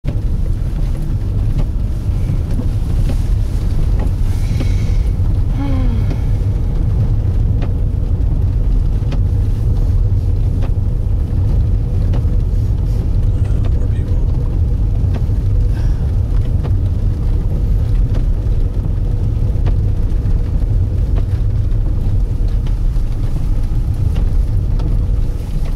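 Steady low rumble of a car driving, heard from inside the cabin: engine and tyre noise on a snow-covered highway.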